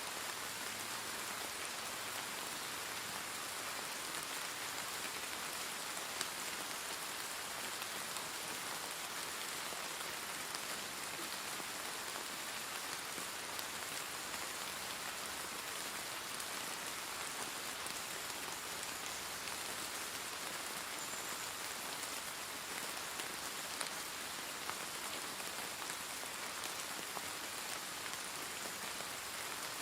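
Steady rain falling, an even hiss of many drops with occasional distinct drop ticks.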